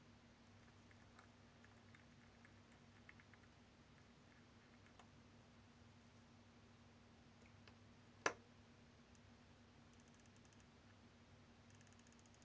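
Faint small metal clicks of watchmaker's tools on a watch movement, with one sharper click about two thirds of the way through and two brief runs of rapid fine clicking near the end.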